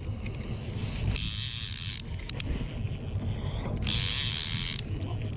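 Okuma Convector CV 30D line-counter trolling reel whirring as its handle is cranked in two spurts of about a second each, working against a heavy salmon that is barely giving line. Under it, the steady low rumble of the boat running.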